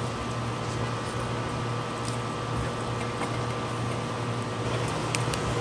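Steady hum and hiss of a large hall's room tone, with a few faint clicks about two seconds in and near the end.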